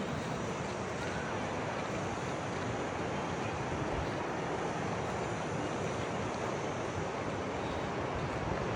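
Steady rush of falling and cascading water from a waterfall, an even unbroken noise.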